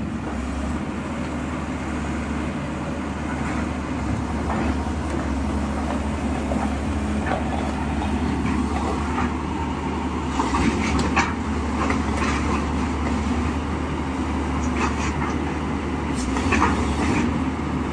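SANY SY215C crawler excavator's diesel engine running steadily as the machine tracks down off a lowbed trailer. Several sharp knocks in the second half come from the steel tracks as they come off the trailer and the machine settles onto the ground.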